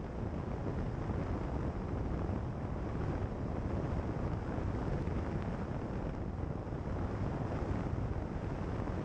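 Steady, low wind rumble on a bonnet-mounted camera's microphone, mixed with the tyre and road noise of a car driving along a gravel road.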